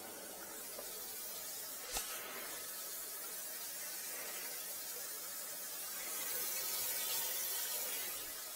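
Kitchen faucet running, water pouring into the sink with a steady hiss that grows louder about six seconds in. One sharp click about two seconds in.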